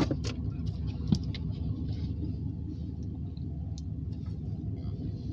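Steady low diesel engine rumble heard from inside a car, with a few light clicks and one sharper knock about a second in.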